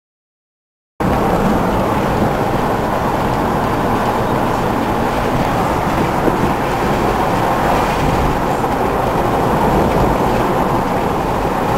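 Silent for about a second, then a full-size Ford Bronco driving on a road, heard from inside the cab: a loud, steady drone of engine, tyres and road noise.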